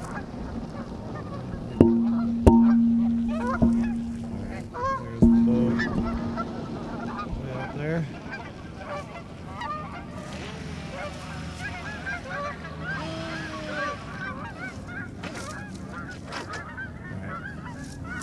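Geese honking again and again across the lake. About two to five seconds in come four short, sudden bursts of a steady low hum from the electric motor of a Force1 Velocity RC boat, each fading within a second.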